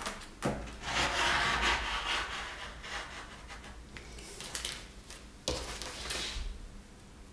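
Rotary cutter rolled along an acrylic ruler, slicing through five stacked layers of fabric on a cutting mat: a scraping cut lasting about a second and a half, then shorter cutting strokes. Two sharp knocks, one near the start and one about two-thirds of the way through.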